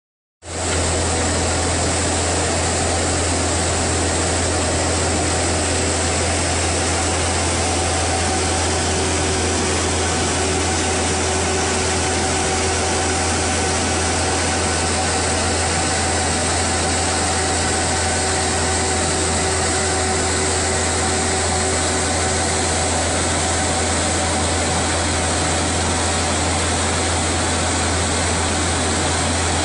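Engine of a Vermeer 16-ton horizontal directional drilling rig running steadily: a deep, constant hum, with a faint thin whine that holds for a stretch in the middle.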